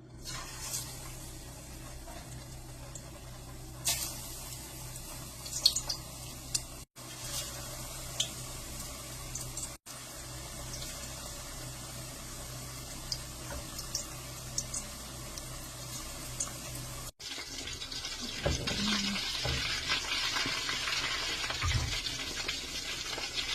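Chicken strips frying in hot oil: a steady sizzle with occasional sharp pops or ticks, growing louder and brighter after a cut about 17 seconds in.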